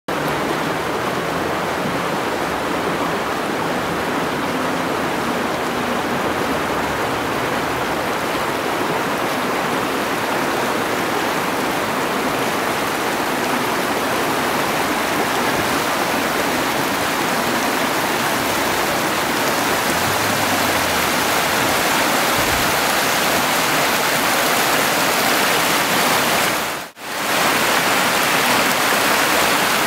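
Shallow, fast mountain river rushing steadily over a stony bed, the sound cutting out for a moment near the end.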